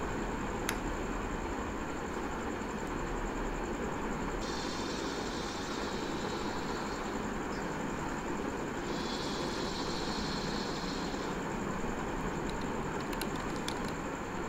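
Steady, dark ambient drone with a constant faint high whine on top, and a few sharp clicks near the end.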